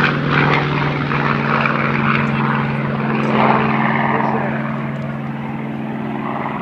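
Piston-engine propeller warbird running at a steady pitch, easing slightly toward the end.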